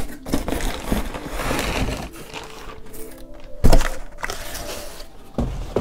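Cardboard box being handled and tipped, with rustling and scraping and a loud thump a little over halfway through, then another thump near the end.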